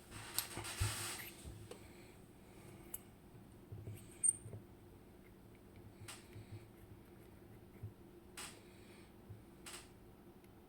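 Clicks and light scraping of a disc-detainer pick being worked in an Abloy Exec lock as its discs are turned. A rustle of handling comes in the first second or so, then single sharp clicks every second or two, the loudest about four seconds in.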